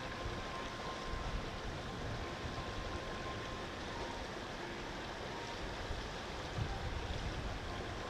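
Wind buffeting the microphone: a steady rushing hiss with an uneven low rumble that swells and fades, strongest near the end.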